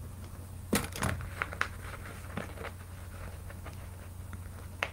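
Light clicks and clinks of metal costume jewelry being handled: two louder knocks about a second in, a few small ticks after and one more near the end, over a steady low hum.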